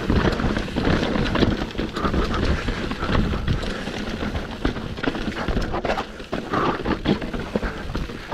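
Kona Process 153 mountain bike rattling down a rocky trail: tyres crunching and knocking over rocks, with a steady clatter of frame, chain and suspension from the rough ground.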